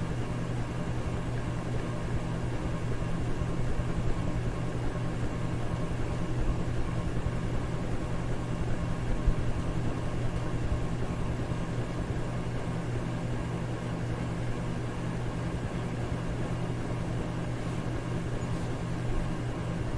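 Electric fan running steadily: an even rush of air over a constant low motor hum, played as white noise for sleep.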